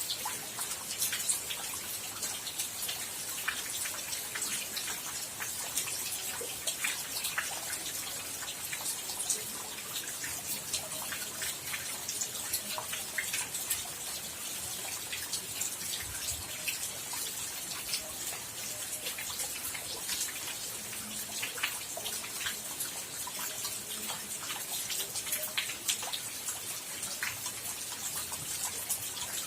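Rain falling, a steady hiss with many separate drops pattering and dripping close by at irregular moments.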